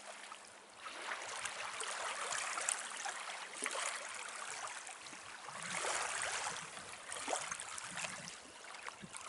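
Lake water lapping and splashing in the shallows at the shore: an irregular wash that rises and falls, louder around the middle.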